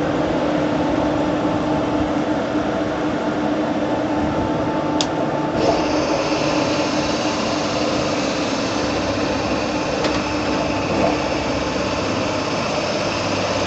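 Electric locomotive's machinery running after the pantograph is raised: a steady hum, a sharp click about five seconds in, then a higher whirring hiss that joins and stays, as more of the auxiliary machinery comes on.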